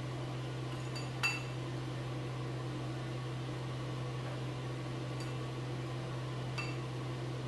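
A steady low hum, with a few light clinks of chopsticks against ceramic dishes. A sharp, briefly ringing clink comes about a second in, and two fainter ones near the end.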